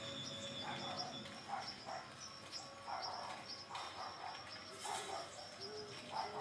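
Faint, steady high-pitched chirping like insects at night, with soft irregular scuffs or knocks in the middle range every half second or so.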